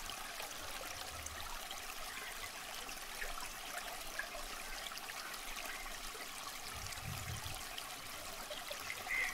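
Water babbling steadily as it flows along a small canal. A short high-pitched sound comes near the end.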